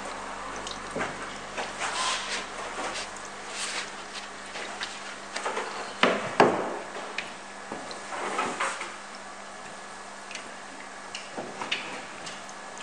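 Water in a koi holding tank: an aeration line bubbling and koi stirring the surface, heard as irregular splashes and knocks. The loudest pair comes about six seconds in, over a steady low hum.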